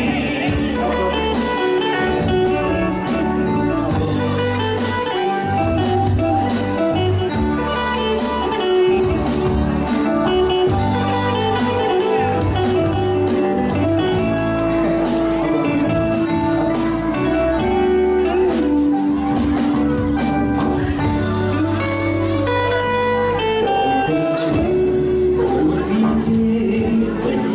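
Live band music playing an instrumental passage, with electric guitar lines over bass and drums.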